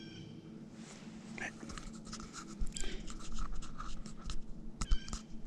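Short, pitched animal calls several times, with rustling and low thumps from about halfway through.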